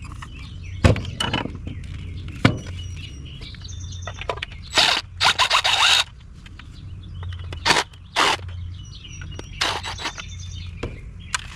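Juicer parts being handled and pried apart: sharp knocks, with a run of quick scraping rattles about five seconds in and a few more scrapes later on.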